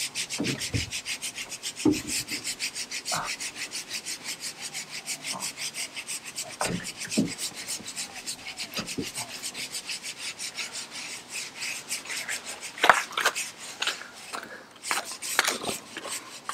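Knocks and thumps on a fiberglass boat hull and trailer as a man clambers down off the bow. Under them runs a fast, even rasping pulse of unknown source, which breaks off briefly near the end.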